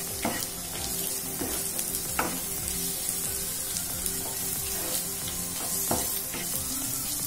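Sliced shallots, tomato and chilli powder sautéing in hot oil in a non-stick frying pan, sizzling steadily while being stirred with a spatula, with a few short scrapes of the spatula against the pan.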